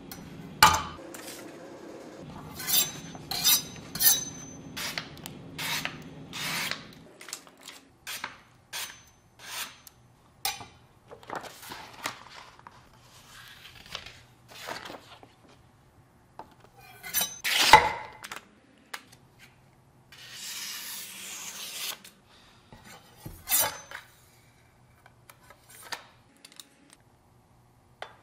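Hands unboxing and handling a chef knife on a wooden cutting board: a run of sharp taps and clicks as the knife, its box and its sheath are picked up and set down, the loudest a little past halfway. The paper wrapping rustles for a couple of seconds about three-quarters through.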